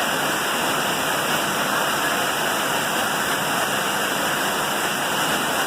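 Heavy downpour and rushing runoff water: a steady, even hiss.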